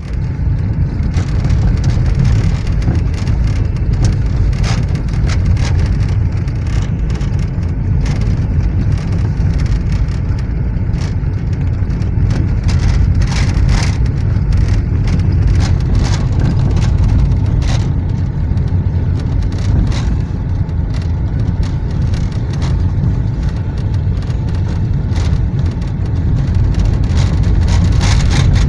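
Car interior noise while driving on a wet, rough road: a steady low rumble of engine and tyres, with irregular sharp taps and knocks, and rain on the windscreen.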